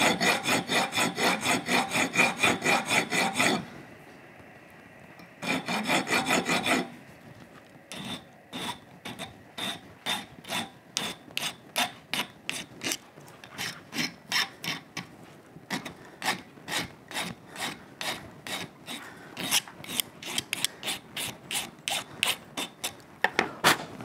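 Hand file rasping back and forth on a small metal part clamped in a bench vise, about four strokes a second with a short break, to widen it for a fit. From about eight seconds in, the strokes turn lighter and quieter with a thin narrow file.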